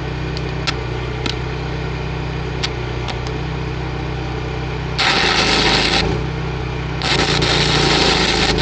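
Welding arc crackling in two passes: a short one of about a second about halfway through, then a longer one of about two seconds near the end, over the steady hum of a gasoline generator running the welder. The weld is repairing a small crack that was starting to form.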